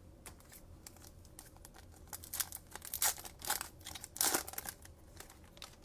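Wrapper of a Panini Mosaic trading-card pack being torn open and crinkled: a run of crackling rustles, loudest about four seconds in.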